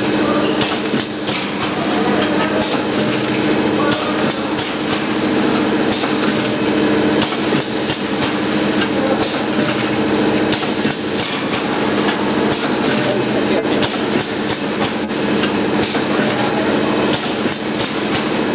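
Vertical form-fill-seal packing machine running: a steady motor hum under a stream of sharp clacks and short hissing bursts, about one or two a second, as its pneumatic sealing jaws and cutter cycle to make sachets.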